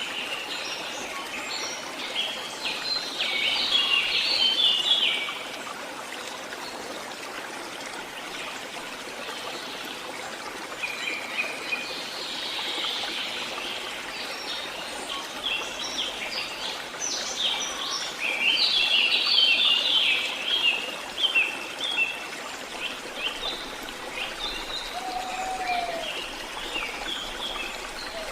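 Songbirds chirping and singing in quick, high-pitched bursts over a steady background hiss, with one lower, arching call near the end.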